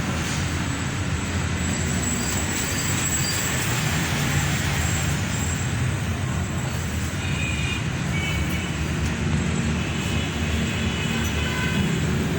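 Steady low rumble of motor-vehicle engine and traffic noise, with a few faint short high tones about seven to nine seconds in.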